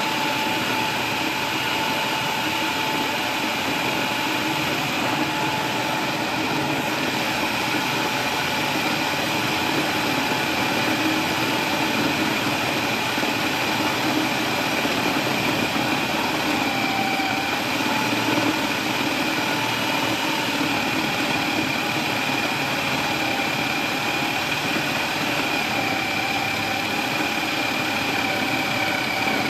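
Food processor motor running steadily with a constant whine, kneading wheat-flour dough in its bowl.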